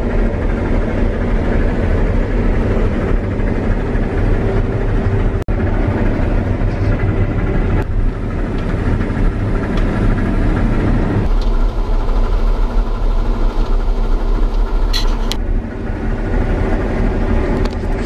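Cat Lexion combine harvester running under load while cutting soybeans, a steady drone of engine and threshing machinery heard inside the cab. The sound shifts abruptly about five and a half, eleven and fifteen seconds in, with a few brief clicks just before fifteen seconds.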